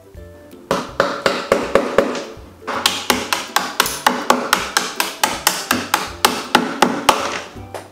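Hammer blows on a flat metal tool driven under the small wooden shingles of a dollhouse roof, knocking them loose: quick, repeated taps, about three a second, with a short pause a couple of seconds in. Faint background music underneath.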